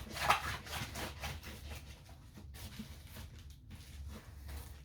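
Stiff diamond painting canvas rustling as it is rolled backwards by hand, a run of short scratchy rubbing sounds, denser in the first couple of seconds and fainter after.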